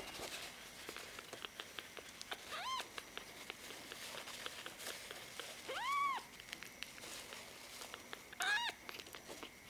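Tiny kitten mewing: three high cries, each rising and falling in pitch, the middle one the longest and loudest and the last a quick double call.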